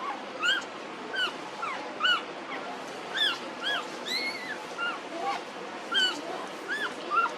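Several newborn puppies squeaking and whimpering: short, high-pitched cries that rise and fall, a few each second and overlapping one another.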